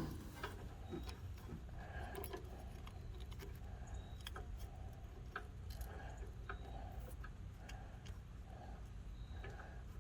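Faint, irregular small metal clicks and ticks as the snowblower's auger control cable fitting and its threaded parts are handled and fitted by hand.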